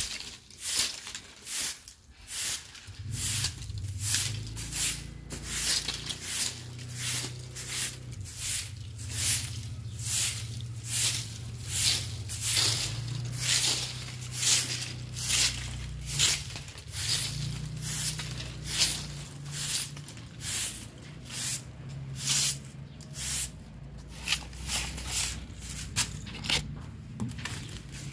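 A stick broom of thin stiff ribs sweeping dry mango leaves across a concrete floor: a steady run of sharp swishes, about three strokes every two seconds.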